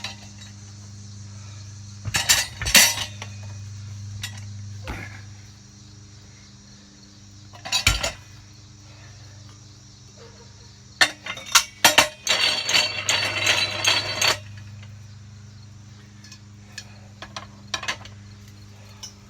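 Steel tire tools working a tire on a manual tire changer, clanking against the steel wheel rim: a couple of clanks about two seconds in, another near eight seconds, then a quick run of sharp clanks around eleven seconds that leads into a couple of seconds of metal scraping with a high ringing tone.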